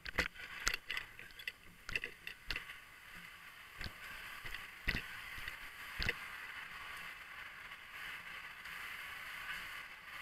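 A run of sharp knocks and clatter from firefighting gear, then from about six seconds in a steady hiss of a fire hose stream flowing water onto the fire.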